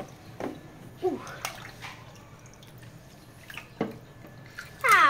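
Water splashing and lapping in a stainless steel kitchen sink as plastic dolls are moved through it, with a few light knocks.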